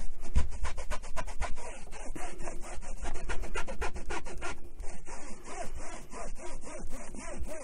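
A cloth rubbed briskly back and forth over the speaker grille of a Roberts RIC1 radio: a fast run of scrubbing strokes with short squeaks, easing off after about four and a half seconds.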